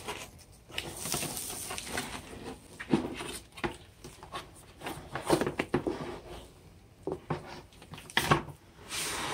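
Soft Smooth-On Flex Foam-iT 15 urethane foam casting being peeled out of a silicone rubber mold by gloved hands: irregular sticky crackling and rubbery rustling as the foam pulls free, with a few sharper clicks.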